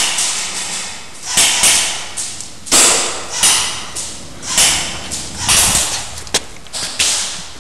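Airsoft gunfire in a large hall: single sharp cracks, irregularly spaced, about one a second, each followed by a hissing echo that dies away.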